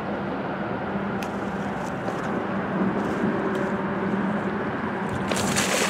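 A steady low hum, then a brief splash near the end as a large carp is let go back into the water.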